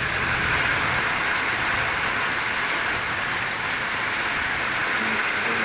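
Heavy rain pouring steadily, a dense unbroken hiss of downpour.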